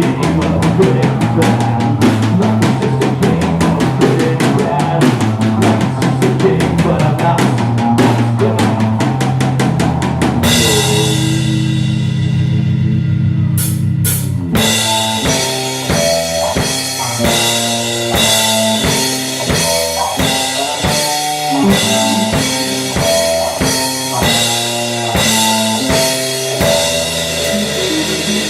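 Live rock band playing, drums to the fore: a busy run of drum hits, then a held low chord with cymbals fading out about ten seconds in. A few seconds later the band comes back in with a choppy, stop-start riff of guitar chords and drum hits.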